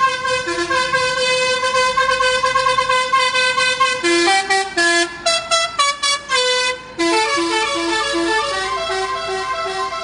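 A Basuri musical air horn on a coach plays a multi-note tune: long held notes, then a quick run of short notes in the middle, a brief break about seven seconds in, and more notes after.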